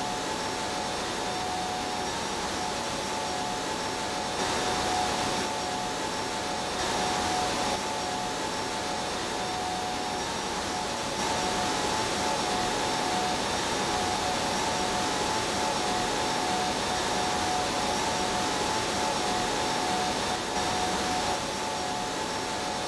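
Steady rushing air with a steady whine from a truck-cab paint booth, where robot spray painters work and the booth's ventilation runs. The level steps slightly up and down a few times.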